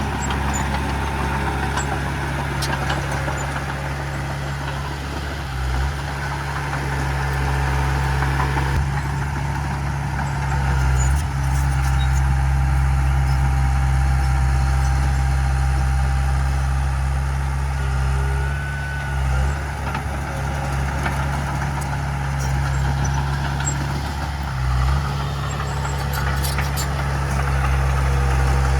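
Heavy earthmoving machinery's diesel engine running steadily with a low, even note, which briefly shifts about four times.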